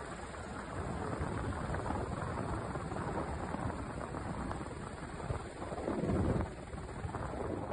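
Helicopter in flight heard from the open cabin door: a steady rumble of rotor and turbine with wind buffeting the microphone, growing louder for a moment about six seconds in.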